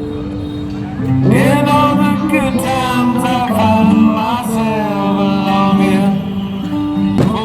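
Music: sustained instrumental chords, with a singing voice entering about a second in. There is one short, sharp sound near the end.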